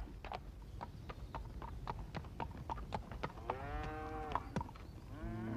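Hooves clopping irregularly on hard ground as cattle are driven in, with a single drawn-out cow moo about three and a half seconds in.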